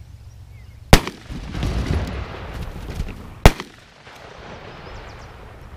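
Two 12-gauge shotgun blasts from a Mossberg Shockwave pump-action firing 00 buckshot, about two and a half seconds apart, with a rough rushing noise between them.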